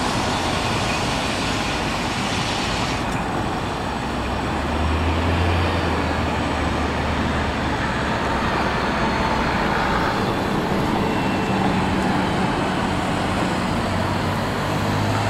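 Street traffic noise with an open-top Boat heritage tram running past and away along the promenade tracks. A high hiss cuts off about three seconds in, and a low drone comes in about four seconds in and fades about ten seconds in.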